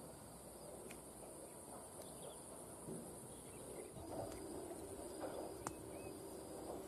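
Insects chirring in a steady high drone over faint outdoor background noise, with a faint low steady hum joining about four seconds in and a single sharp click near the end.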